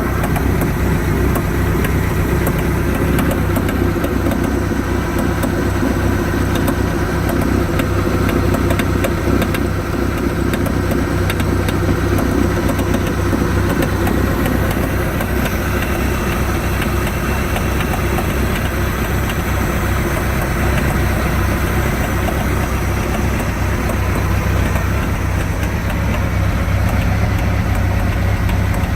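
MerCruiser 140 3.0-litre four-cylinder marine engine idling steadily, with a fast, continuous clicking that seems to come from the rear of the motor. New coupler, outdrive and gimbal bearing have not cured the click, and its cause is unknown.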